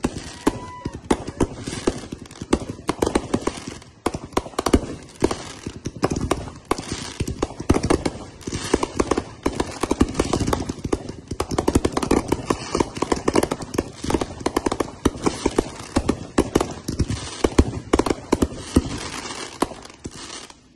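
Fireworks finale: aerial shells and cakes going off in a dense, unbroken barrage of rapid bangs and crackling.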